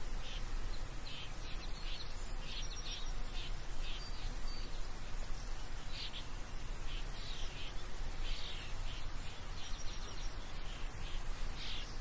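Countryside ambience: small birds chirping in many short, irregular calls over a steady low rumble.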